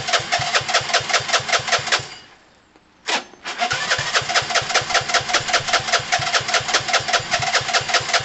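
Gilera DNA 125's single-cylinder four-stroke engine idling with a steady pulsing beat, then dying away about two seconds in; after a second's silence it fires with a sharp burst and catches, idling again. It will not hold throttle, and the owner takes its carburettor to need a good clean out.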